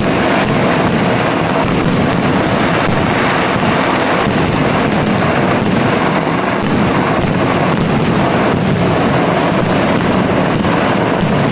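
Vedikettu fireworks display going off in a dense, unbroken barrage: rapid bangs and crackling merge into one loud, steady din with no gaps.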